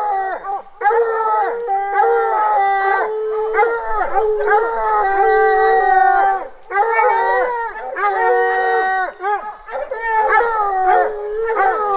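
A bear hound bawling in long, drawn-out howls, one after another with only brief breaks, each call dropping in pitch at its end. It is a strike dog baying on a bear's scent.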